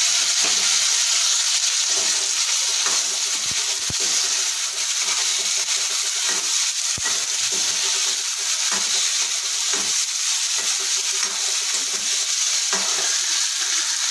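Chopped onions and tomatoes sizzling steadily as they fry in hot oil in a kadai, stirred with a metal ladle that clinks against the pan now and then.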